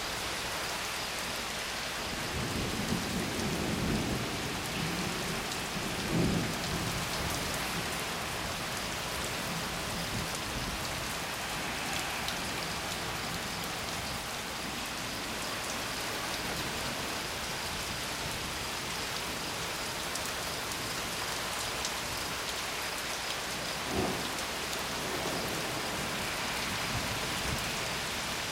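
Steady heavy rain falling, with thunder rumbling twice early on, about three and six seconds in. A brief low thump comes near the end.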